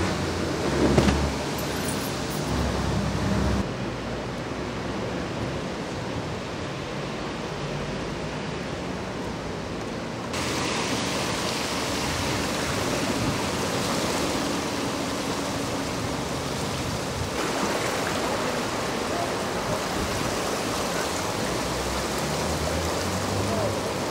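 Steady rushing of the flooded Inde river, fast high brown floodwater heard as an even hiss that shifts in level at the cuts. Near the start there is a low rumble with a knock about a second in.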